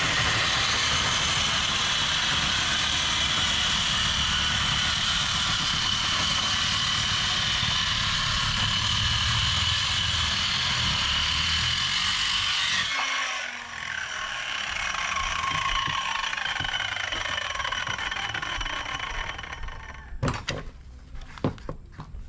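An electric power tool running steadily with a high whine, then switched off about 13 seconds in and winding down over several seconds with falling pitch. A few sharp knocks come near the end.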